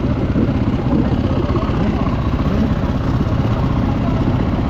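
Off-road motorcycle engine running steadily at low revs, with faint voices in the background.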